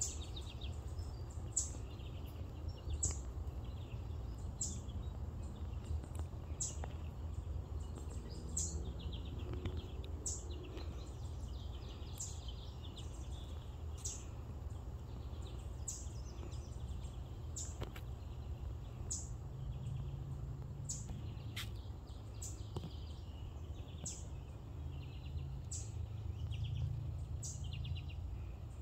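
Songbirds calling in woodland: a sharp, high, downward-slurred chip repeated every second and a half to two seconds, with short twittering trills between, over a steady low rumble.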